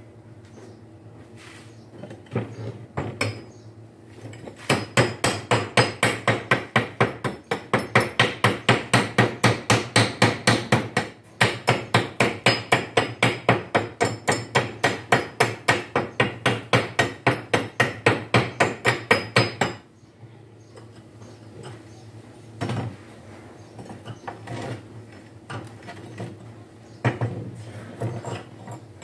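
Hand hammer striking steel in a fast, even run of several blows a second on a homemade angle-bar bender, with a short break about eleven seconds in; the hammering stops about twenty seconds in, leaving a few scattered metal knocks.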